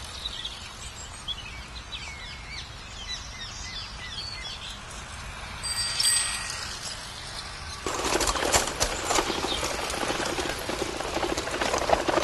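Birds chirping, with a short high ringing tone about six seconds in. From about eight seconds in, a louder din of many voices chattering. These are sound effects dubbed over a silent film.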